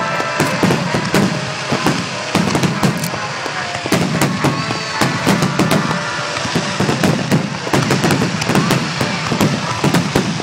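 Fireworks display: aerial shells bursting in a rapid, continuous barrage, many sharp bangs a second with crackling.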